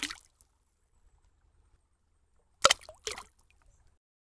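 The tail of a cartoon splash as an egg drops into a bucket of red paint. Then, near the end, two short cartoon sound effects about half a second apart, the first louder, as the paint-coated egg springs out of the bucket and lands on the ground.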